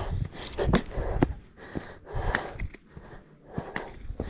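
A hiker breathing hard in uneven puffs, out of breath after a steep sandstone descent, with a low rumble on the microphone and a few sharp taps.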